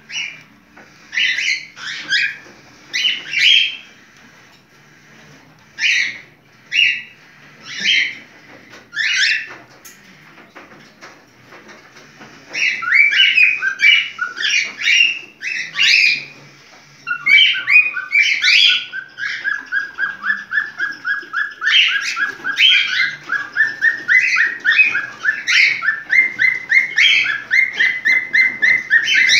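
A cockatiel making its mating-season (in-heat) calls. It gives separate whistled chirps at first, then about halfway through breaks into a fast, unbroken run of repeated chirps.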